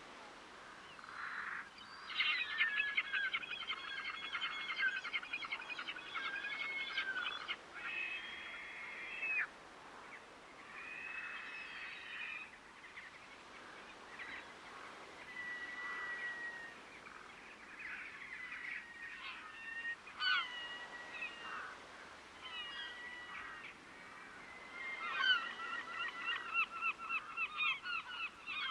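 Water birds calling: a long run of rapid, repeated calls starting about two seconds in, scattered single calls in the middle, and another rapid run near the end.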